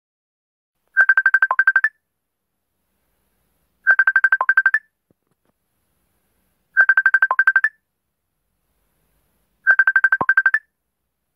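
Facebook Messenger incoming-call ringtone: four rings, each a quick run of about ten rapid beeps lasting about a second, with a dip to a lower note near its end, repeating about every three seconds with silence between.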